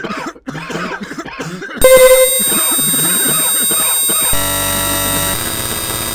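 A person coughing repeatedly over background music. About two seconds in, a sudden, much louder, harsh blare of steady held tones cuts in and stays, changing to a lower set of tones a little past four seconds in.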